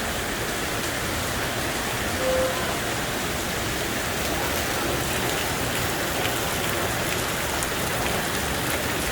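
Heavy rain pouring down, a steady unbroken hiss. A short tone sounds briefly about two seconds in.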